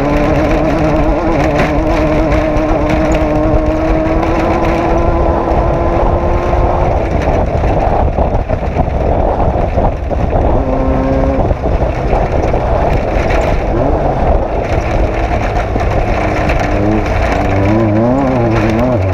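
Off-road race vehicle's engine running hard. Its pitch climbs steadily for the first seven seconds, gives way to a rough, noisy stretch, then rises and falls quickly near the end.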